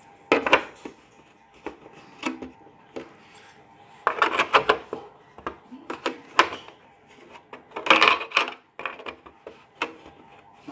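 Hard plastic knocks, clicks and rattles as short black plastic legs are pushed into the underside of a mini snooker table. The knocks come in clusters, with dense runs about four seconds in and again about eight seconds in.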